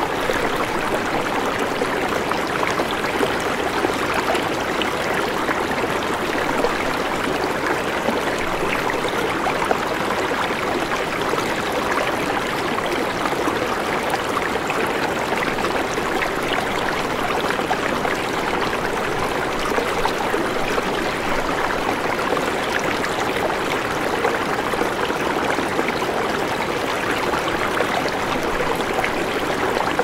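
Water in a rocky stream pouring over a small drop between boulders and churning into a pool below: a steady, unbroken splashing rush.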